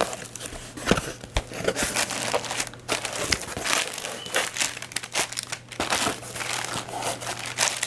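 Plastic air-pillow packing and cardboard box flaps crinkling and rustling as a shipping box is unpacked by hand, in irregular crackles with a couple of dull knocks about a second in.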